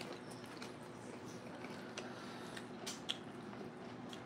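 Faint eating sounds: soft chewing with a few small clicks of a spoon and tostada against a plate, two of them close together about three seconds in.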